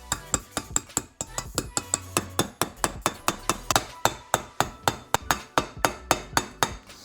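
A hammer tapping the edges of a dust seal to drive it into a motorcycle wheel hub, light quick taps at about five a second.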